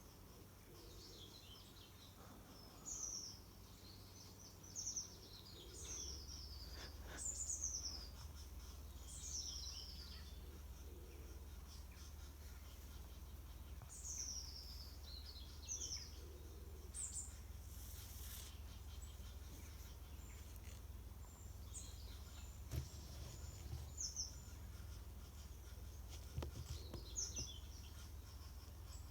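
Small birds calling: about a dozen short, high-pitched notes, each falling in pitch, scattered irregularly, over a steady low rumble.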